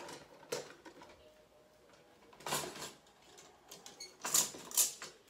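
Plastic packaging being handled: rustling and clacking of bagged lip gloss cones and a clear plastic box in a few short bursts, the loudest two close together near the end.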